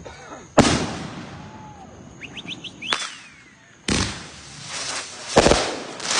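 Fused consumer firework cakes firing: a series of loud bangs at uneven intervals of about one to two seconds, each trailing off, with a brief whistle falling in pitch about three seconds in.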